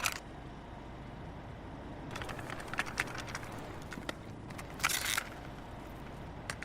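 A low, steady rumble with scattered clicks and crackles, and a short hiss about five seconds in.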